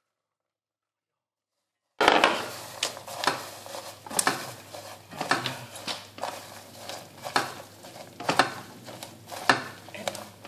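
Popcorn being stirred into caramel in a stainless steel saucepan with a silicone spatula: rustling, scraping strokes about twice a second, starting about two seconds in.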